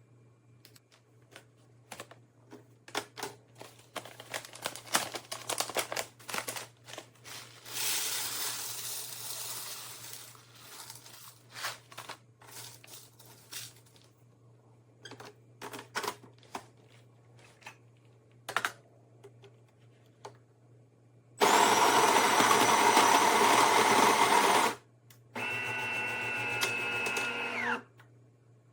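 Scattered clicks and knocks of parts being handled. Then the De'Longhi Magnifica Start's built-in grinder runs loudly for about three seconds, and after a short gap a quieter steady pump hum follows for about two seconds, as the machine grinds and then brews.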